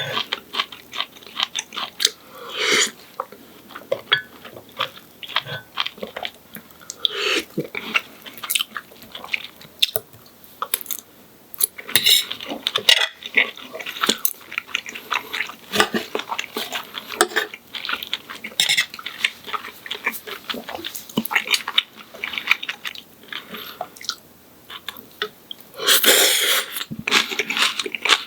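Close-miked eating: a person chewing and biting food, with many small sharp clicks and smacks throughout and a louder, longer noisy sound near the end.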